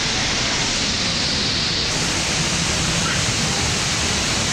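Steady, loud rush of falling water from a waterfall.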